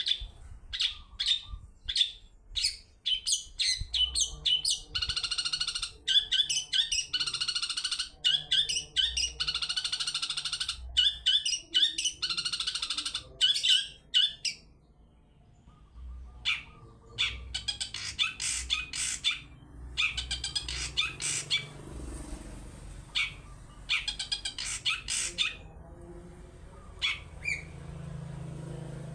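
Long-tailed shrike singing: rapid runs of sharp, high chattering notes in bursts, with a pause of about two seconds near the middle.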